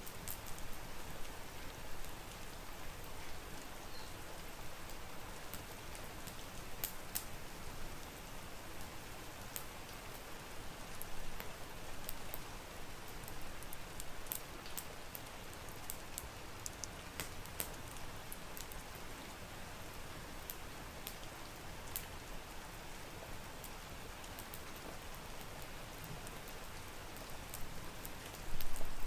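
Steady rain, an even hiss with scattered sharp ticks, growing suddenly louder with a low rumble in the last moment.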